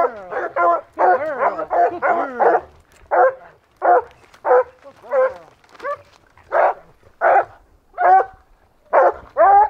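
Hunting dogs barking steadily, about one to two barks a second, some overlapping: the tree bark of dogs holding a mountain lion treed.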